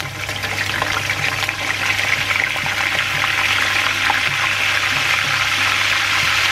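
Shallots and garlic, wet from a soak in salted water, dropped into hot cooking oil in a frying pan and sizzling hard as they fry. The sizzle swells over the first two seconds and then holds steady.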